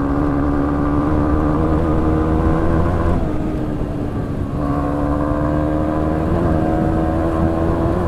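Yamaha WR single-cylinder dirt bike engine running steadily under way, with wind and road rush over the camera mount. The engine eases off about three seconds in, then picks up again at a slightly higher pitch about a second and a half later.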